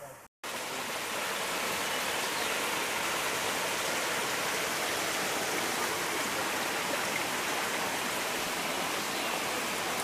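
Shallow stream of water running over rocks, a steady rushing and splashing that starts abruptly about half a second in.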